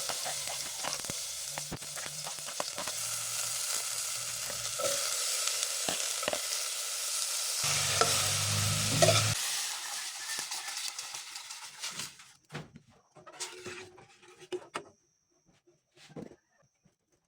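Milkfish frying in hot oil, a steady sizzle with scattered clicks of a utensil in the pan. The sizzle dies away about twelve seconds in, leaving only a few faint knocks.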